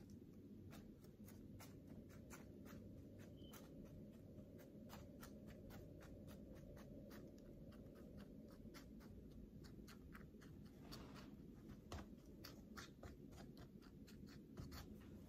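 Faint, irregular light clicks and scratchy rustling of hands handling seed packets and seed trays, over a low steady hum.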